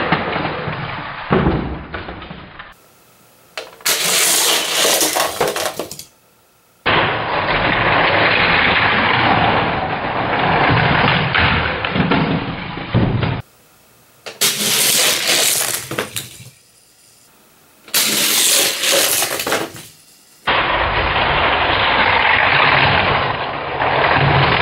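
Die-cast Hot Wheels cars clattering and rattling down plastic track and through a loop, in several short runs cut together, with stretches of steady, dense rushing noise between them.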